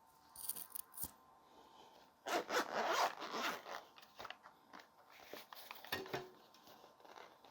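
Zipper of a carrying case being pulled open, one loud pull about two seconds in, with small clicks and handling rustles before and after.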